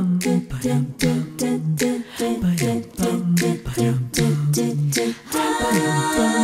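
A cappella vocal music: voices sing close harmony over a sharp vocal beat, and about five seconds in the beat drops out into sustained sung chords.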